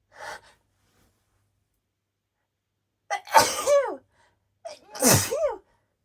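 A woman sneezes twice, about a second and a half apart, each sneeze starting with a sharp catch of breath and ending in a voiced cry that bends up and then down in pitch. They are allergy sneezes set off by roses. A short faint breath comes near the start.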